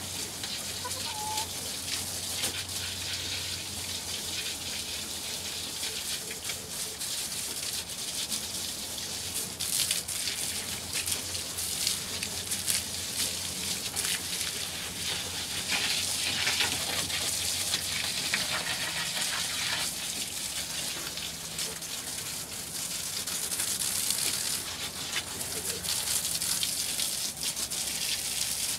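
Garden hose spraying water to wash down a wooden chicken coop: a steady hiss and splatter of running water.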